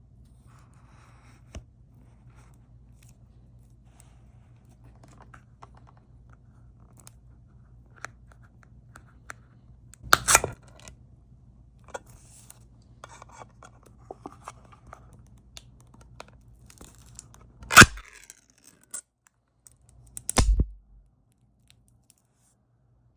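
Metal can of dog food with a pull-tab lid being opened: scattered small clicks and scrapes of handling, then three sharp cracking, tearing noises as the tab pops the seal and the lid is peeled off, the loudest about two-thirds of the way through. A faint steady hum lies underneath.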